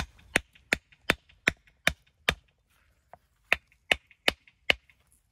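Walling hammer striking a stone held on a larger stone. Twelve sharp metal-on-stone blows come at about two and a half a second, in two runs with a short pause a little before the middle: a stone being trimmed to shape for the wall.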